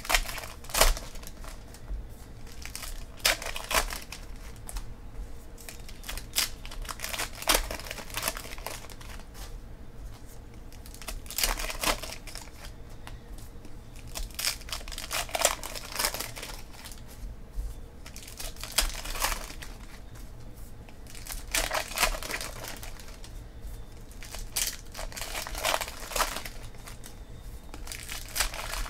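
Foil wrappers of baseball card packs being torn open and crinkled by hand. The crackling comes in repeated bursts every few seconds.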